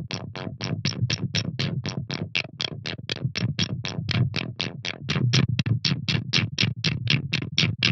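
Electronic music: a synthesizer pulsing about five times a second over a steady low drone.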